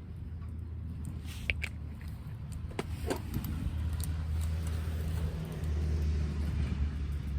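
Strong wind buffeting the microphone as a steady low rumble that swells toward the end, with a few light clicks and rattles.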